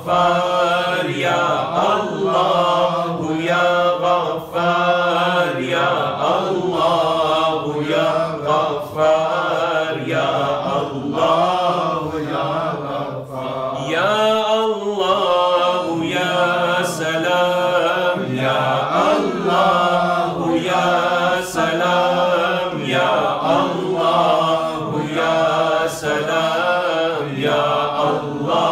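A man chanting a melodic devotional recitation with long, gliding held notes, sung without a break.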